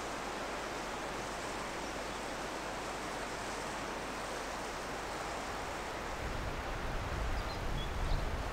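Steady rushing outdoor noise, with wind rumbling on the microphone in low gusts from about six seconds in, strongest near the end.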